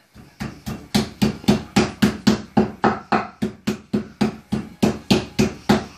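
Meat mallet pounding slices of raw meat flat on a wooden chopping board to make zrazy: a steady run of about twenty blows, roughly three or four a second.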